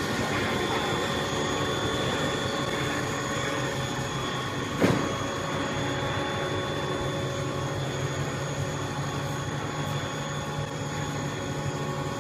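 Puffed-snack extruder line running: a steady mechanical drone with several constant whining tones, and a single sharp knock about five seconds in.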